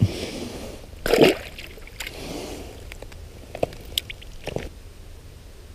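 A small largemouth bass dropped back into the water of an ice-fishing hole with a splash about a second in, then rustling and a few light clicks as the fishing line is handled.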